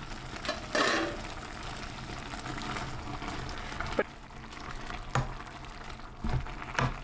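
Saag simmering in a steel pot while a wooden masher stirs the greens and knocks against the pot four times in the second half. A short clatter about a second in.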